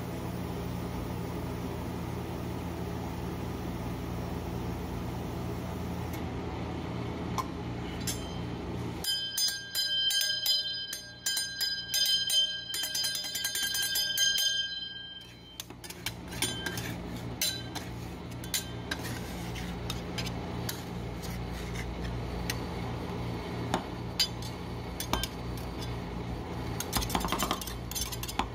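Rolled ice cream cold-plate machine humming steadily. About nine seconds in, bright bell-like metallic ringing and clinking takes over for several seconds. After that the hum returns under frequent sharp taps of metal spatulas chopping the cream and snack cakes on the steel plate.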